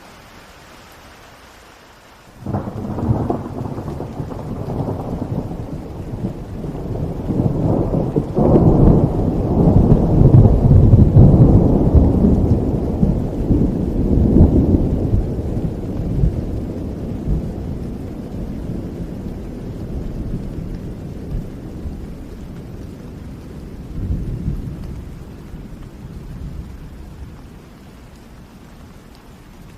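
Steady rainfall with a long roll of thunder that breaks in suddenly a couple of seconds in, swells to a deep rumble, then slowly dies away, with one smaller swell near the end.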